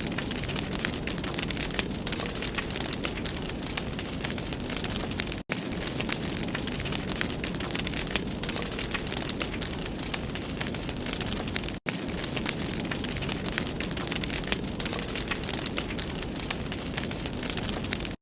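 Wood fire burning in a fireplace: a steady rush of flames with many sharp crackles and pops throughout, cut off for a split second twice, about five and twelve seconds in.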